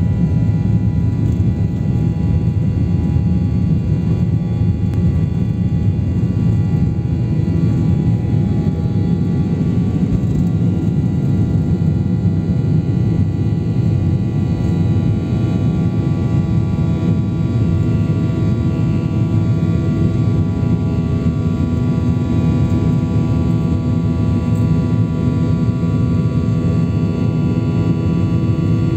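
Airliner engines at takeoff power heard from inside the passenger cabin during the takeoff run and climb-out: a loud, steady deep rumble with several steady high tones over it.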